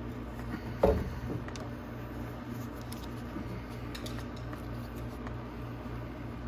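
One sharp knock about a second in, followed by a few faint light clicks, from hand work on the metal battery bracket and its screw and nut, over a steady low hum.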